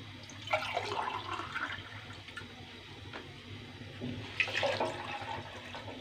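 Water poured from a glass into an aluminium saucepan, splashing into the water already in it, in two spells.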